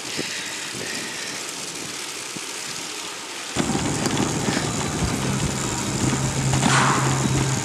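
Bicycle riding with wind and tyre hiss on smooth asphalt. About three and a half seconds in it switches to a dense rattling rumble as the bike rolls over paving stones, with a steady low hum in the background near the end.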